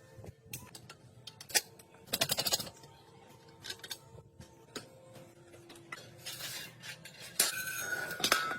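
Metal tools and parts clinking and scraping by hand, in scattered sharp clicks. There is a quick rattling run about two seconds in and a longer, louder scraping burst near the end.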